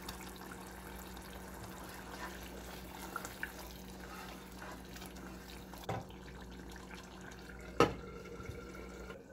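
Onion-and-tomato stew base simmering and bubbling in a saucepan while it is stirred with a wooden spoon. Near the end a tempered-glass lid is set down on the pot with one sharp clink, the loudest sound.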